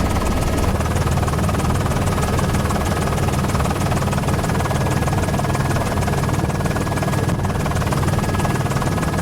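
News helicopter's rotor and turbine engine running in flight, a steady loud drone with a couple of faint steady whining tones above it.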